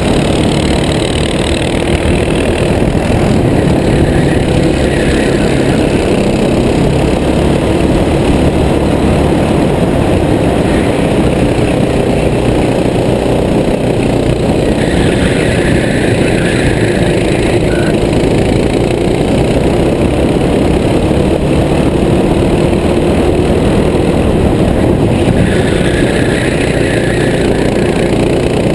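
Racing kart engine running hard, heard from the driver's helmet camera with wind rushing over the microphone; the engine note rises and falls a little through the corners.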